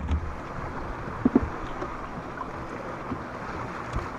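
Steady wind and water noise on an open boat, with wind buffeting the microphone. A short knock about a second in and another near the end.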